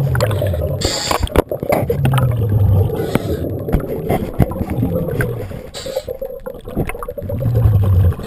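A diver breathing through a regulator underwater: a short hiss on each inhale and a low bubbling rumble on each exhale, one breath about every two to three seconds.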